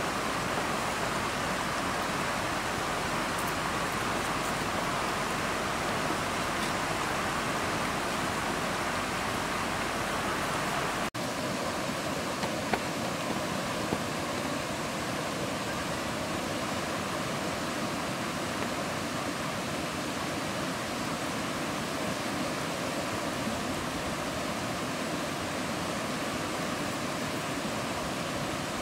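Steady rushing noise, an even hiss that does not change. About eleven seconds in, the deep rumble underneath drops away at a cut, and a couple of faint knocks follow.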